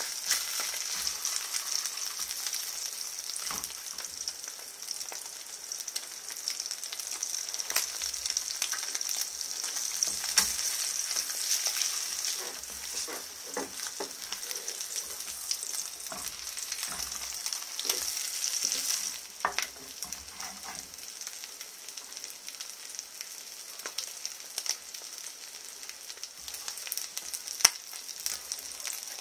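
Eggs with chopped green onion sizzling in a frying pan, with a wooden spatula scraping and tapping against the pan now and then. The sizzle eases a little about two-thirds of the way through.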